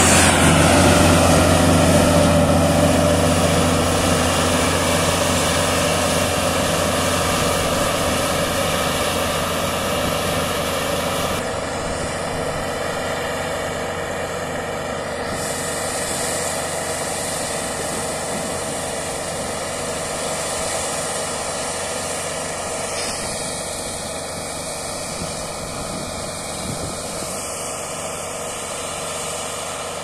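Deutz-Fahr M 1202 E combine harvester's diesel engine running steadily while harvesting, growing gradually fainter as the machine moves away.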